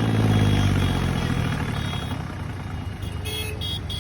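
Tractor engine running hard, its revs falling over the first second or two and then settling into a steady low rumble. Several short, high toots come in quick succession about three seconds in.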